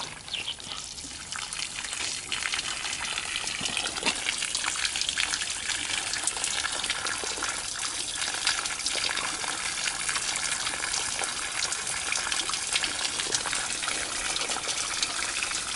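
Water gushing and splashing through a clear acrylic flow-test tank, with a constant crackle of small splashes. It builds up over the first couple of seconds, then runs steadily.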